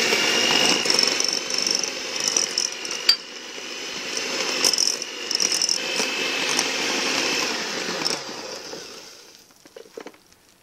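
Electric hand mixer running steadily, its wire beaters churning seasoned ground beef into bakso meatball paste, with a steady motor whine and a few sharp clicks. The motor winds down and stops near the end.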